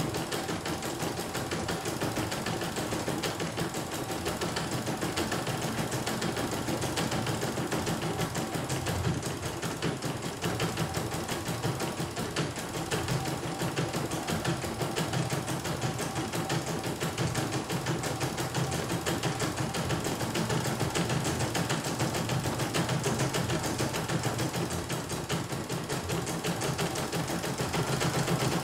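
CNY E900 computerized embroidery machine stitching a design: a steady, rapid needle clatter as the embroidery arm moves the hoop under the needle.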